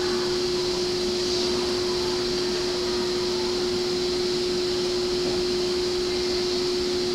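E231 series trailer car standing at rest, its onboard equipment giving a steady hum with one constant tone and a hiss above it.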